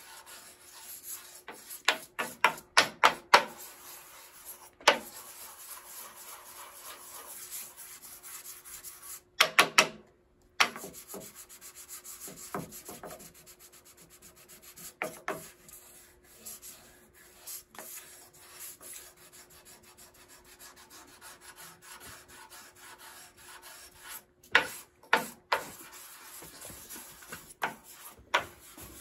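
Hand sanding with coarse sandpaper on a wooden block, rubbed back and forth over the built-up finish of a grand piano's wooden case rim to flatten out low spots before polishing. The steady scratching comes with several bursts of quick, sharper strokes.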